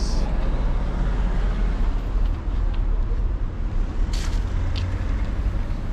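Steady low rumble of road traffic going past on an urban street.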